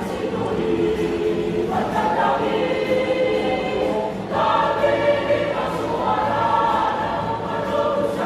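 Mixed choir of men's and women's voices singing in parts under a conductor, holding long chords that move to new ones about two seconds in and again just past four seconds.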